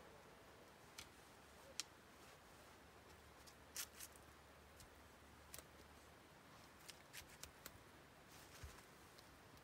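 Faint, scattered small clicks and rustles of hands handling cord and a canvas shelter being tied off, over near silence. The clicks come irregularly, a few at a time, with a small cluster near the end.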